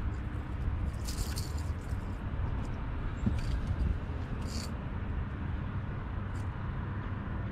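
A small bass is swung aboard and unhooked from a lipless crankbait: short rattling bursts about a second in, again near three seconds and near four and a half seconds, over a steady low rumble.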